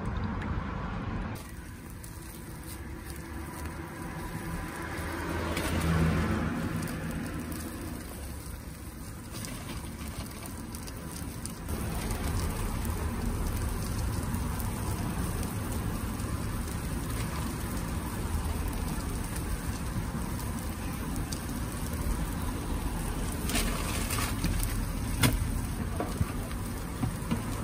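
Takoyaki batter sizzling in the cups of a hot cast-iron takoyaki grill, a steady crackling hiss over a low rumble, with a few sharp clicks near the end.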